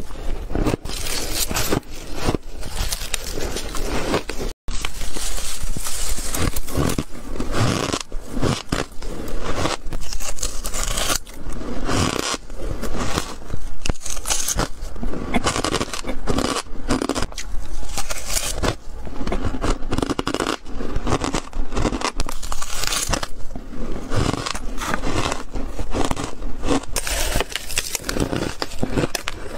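Close-miked crunching of coloured shaved ice being bitten and chewed, many crisp crunches in quick succession, with a brief dropout about four and a half seconds in.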